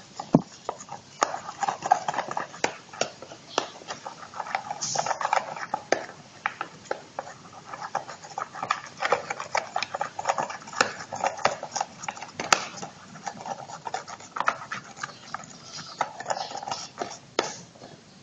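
A spoon stirring a mixture of dish soap and salt water for slime, clicking and scraping against the container in many quick, irregular taps.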